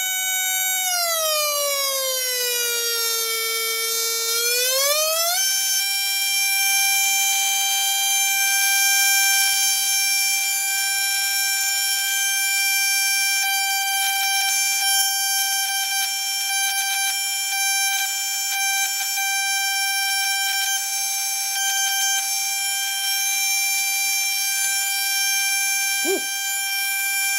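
Mini half-bridge solid state Tesla coil firing its spark arcs, which sing as a loud buzzing tone whose pitch follows the interrupter's pulse rate. The pitch glides down over the first few seconds, climbs back about five seconds in, then holds a steady high note until the coil is switched off right at the end.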